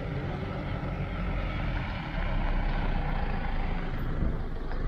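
A vehicle engine idling: a steady low rumble that grows louder about two seconds in.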